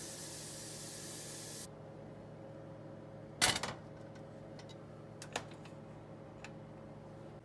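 A cooking pot set down onto an electric stove's coil burner with a single clunk, followed by a few light clicks. It comes after a short steady hiss, with a low steady hum underneath throughout.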